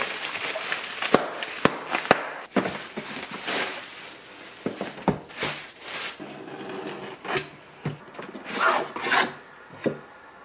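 Bubble wrap and plastic packaging rustling as it is pulled from a cardboard shipping box, then quieter handling of cardboard packaging with scattered taps and clicks.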